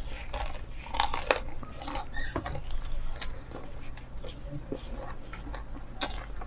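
Close-up biting and chewing of fried chicken: irregular short crisp crunches and crackles as the coated meat is bitten and chewed, with a louder cluster about a second in and another near the end.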